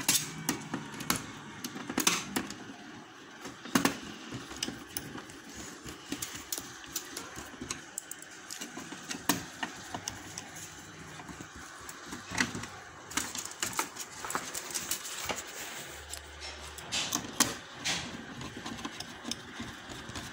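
Screwdriver driving screws to fasten a circuit board onto a TV's sheet-metal back panel: irregular clicks, taps and scrapes of metal on metal.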